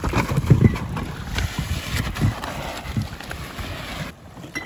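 A large Coleman wheeled plastic cooler being dragged over coral rubble and sand, its wheels and hollow body knocking and scraping unevenly. It turns quieter near the end.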